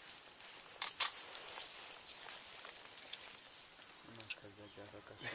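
Steady high-pitched drone of rainforest insects, unbroken throughout, with a sharp click about a second in.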